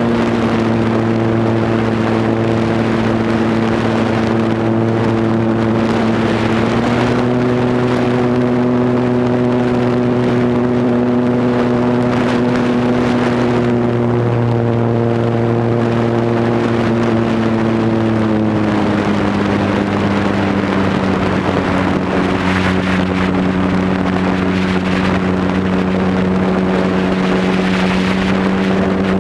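Cub airplane's engine and propeller running steadily in flight, heard from a camera mounted on the plane with wind rushing over the microphone. The pitch steps up slightly about seven seconds in, then drops to a lower steady drone about two-thirds of the way through as the throttle is eased back.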